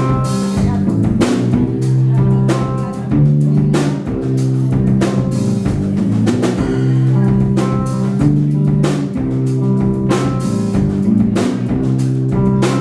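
Band music without vocals: a drum kit keeps the beat under guitar and sustained bass notes.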